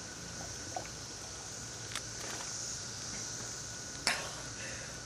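Quiet outdoor background with a steady high hiss, a few faint clicks, and one short sharp sound about four seconds in.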